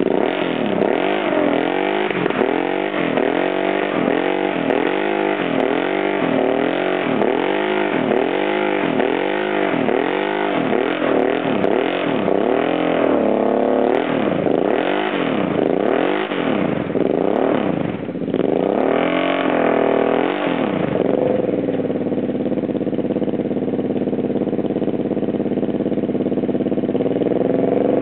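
ATV engine revved up and down over and over, about once a second, as a quad stuck in the mud tries to climb out. For the last several seconds the throttle is held at steady revs.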